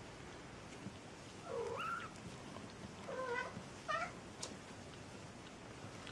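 Three-week-old kitten mewing three times in short, high calls that bend up and down.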